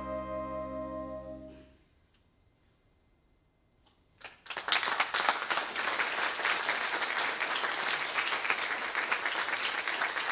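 Clarinet choir's final sustained chord, fading out under two seconds in, then a couple of seconds of silence before audience applause breaks out and carries on steadily.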